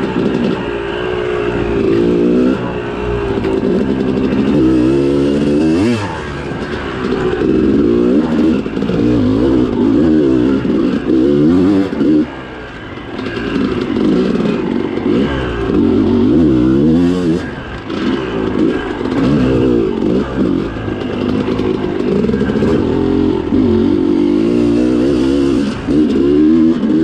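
Yamaha YZ250 two-stroke dirt bike engine revving up and down continuously as it is ridden, with the throttle backing off briefly about twelve and eighteen seconds in.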